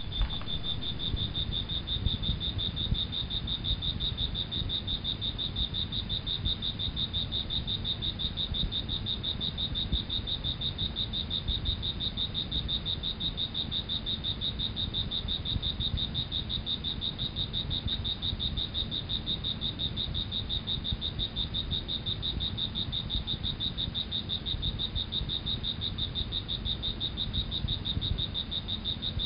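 Nature ambience of a trilling animal chorus: a steady high trill pulsing rapidly and evenly, over a low rumble.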